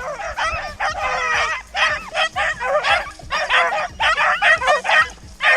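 A pack of rabbit-hunting dogs baying and yipping with several voices overlapping, the continuous cry of hounds running a rabbit.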